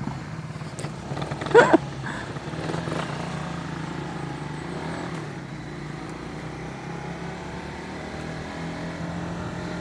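Honda CBR150R single-cylinder engine running steadily while riding. A short, loud sound that wavers in pitch cuts in briefly about a second and a half in.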